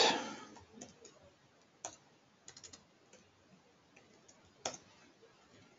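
A few scattered computer keyboard keystrokes, with a quick run of three around the middle and a louder keystroke near the end.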